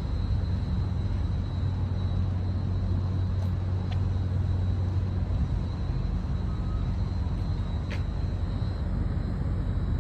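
Steady low rumble of outdoor city background noise, with two faint ticks, about four and eight seconds in.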